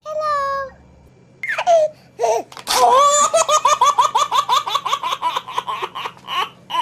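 High-pitched giggling laughter: a long run of quick giggles, about six a second, after a short high vocal sound at the start.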